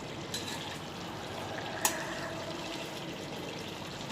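Chicken masala sizzling and bubbling in oil in the pan, a steady hiss: the oil has separated from the masala, the sign that it is fully cooked. A single sharp click about two seconds in.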